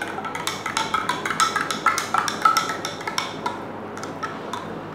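A metal spoon stirring in a drinking glass, clinking against the sides in quick, irregular taps with short glassy rings.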